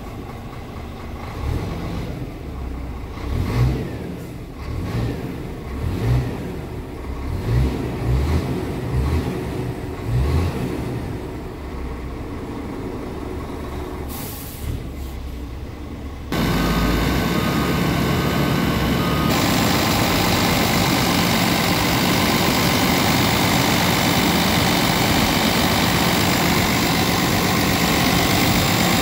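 Scania R tractor unit's inline-six diesel idling, heard from inside the cab, with several short low swells in the first ten seconds or so. About sixteen seconds in the sound switches to the open engine bay, where the same diesel runs louder and steady at idle.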